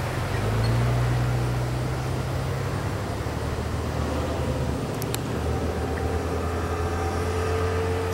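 Double-stack intermodal freight train's well cars rolling past on jointed track: a steady low rumble of steel wheels on rails.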